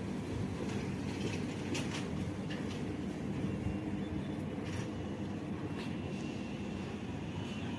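Stainless-steel passenger train coaches rolling slowly past: a steady low rumble of wheels on rail with a few light clicks. A faint high steady tone comes in about halfway.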